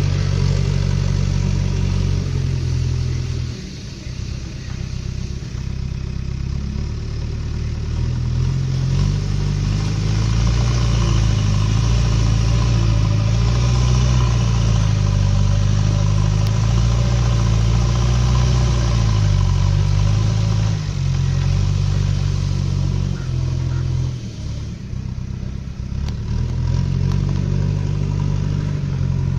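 JCB backhoe loader's diesel engine running, its speed rising and falling as the machine works, with two spells where it drops lower and quieter, a few seconds in and again near the end.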